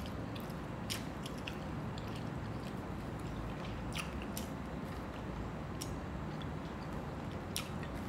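Close-miked eating: chewing and lip smacking, with a few short, sharp mouth clicks over a steady low hum.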